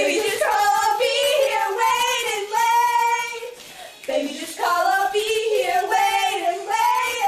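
A high singing voice holds long, wavering notes in two phrases, with a short break a little before the halfway point and little or no instrumental backing.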